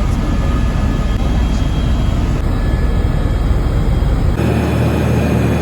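Helicopter rotor and turbine engine noise heard from inside the cabin in flight: a loud, steady, rapidly pulsing rumble with faint steady high tones above it. The sound changes abruptly twice, about two and four seconds in.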